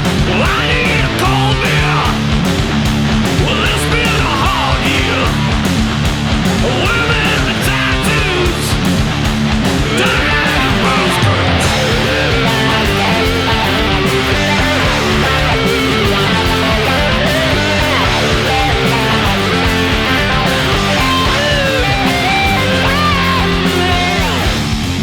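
Stoner rock recording: heavy distorted electric guitars, bass and drums, with a lead guitar bending notes high over the riff.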